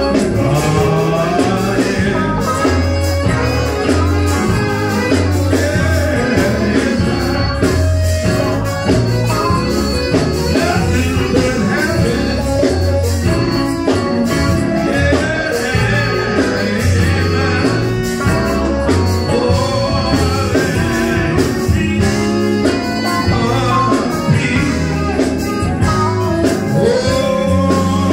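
Live gospel music: an electric guitar band playing with singing over a steady bass line.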